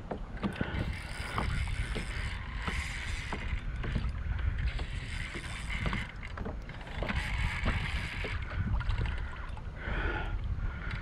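Wind buffeting the microphone and water moving against a small kayak, with scattered sharp clicks and knocks.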